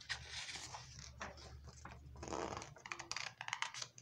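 A picture-book page being turned by hand: paper rustling, with a quick run of crackles near the end.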